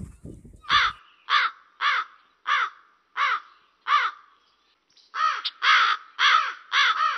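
A crow cawing again and again, about ten harsh calls each bending up and down in pitch, spaced a little over half a second apart, with a short break about two-thirds of the way through before the calls resume closer together. In the first second a low rumble of wind on the microphone cuts off suddenly.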